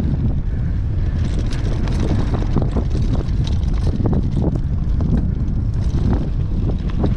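Wind buffeting the microphone in a heavy low rumble during a bicycle ride, with irregular rattling clicks scattered through it.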